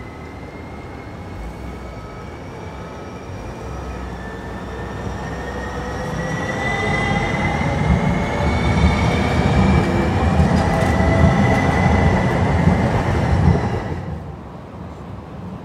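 Red Siemens San Diego Trolley light rail car passing close by on street track: wheel and rail rumble builds, is loudest for several seconds, then drops away sharply near the end. A high whine climbs slowly in pitch throughout.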